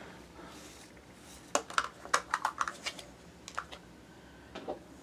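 Diamond painting drill pen tapping resin drills onto the canvas: about ten light, sharp clicks in small clusters, with quiet gaps between.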